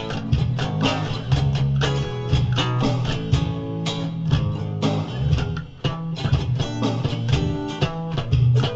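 Instrumental funk-rock demo: a programmed Roland R-70 drum-machine beat, a bass guitar line and rhythm guitar chords playing together. The band drops out briefly a little past halfway.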